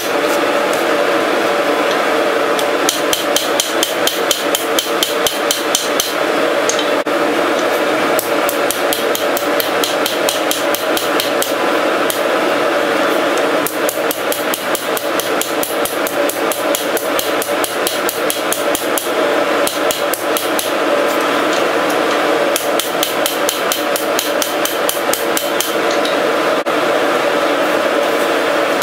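Hand hammer striking red-hot steel bar stock on an anvil in a quick, steady rhythm of several blows a second, each blow ringing, as the hot steel is forged.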